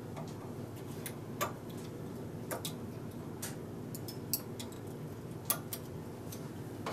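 Irregular light metallic clicks of a hand transfer tool and latch needles on a knitting machine's metal needle bed, as stitches are moved by hand to decrease. About a dozen clicks come unevenly over a steady low hum, the loudest right at the end.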